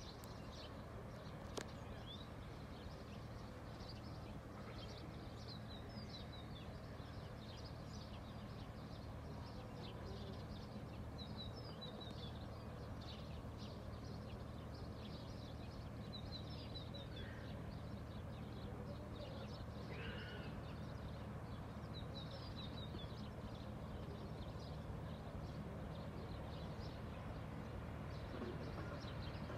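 Small birds chirping on and off over a steady low drone, the engine of an approaching cargo ship, which grows slowly louder. There is one sharp click about a second and a half in.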